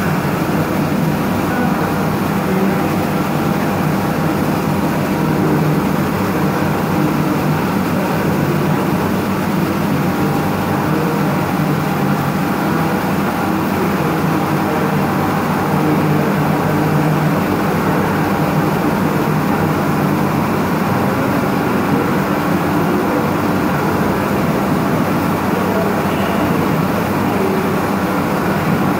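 CNC vertical machining centre milling aluminium with an end mill at high spindle speed, a steady cutting noise mixed with the spray of flood coolant, without a break.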